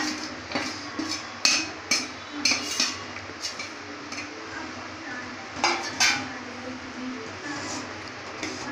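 A metal spoon scraping and knocking against a steel plate and the rim of a metal cooking pot, with several sharp clinks in the first few seconds and two more about six seconds in. Between and after the clinks comes the softer sound of a ladle stirring thick milk and vermicelli in the pot.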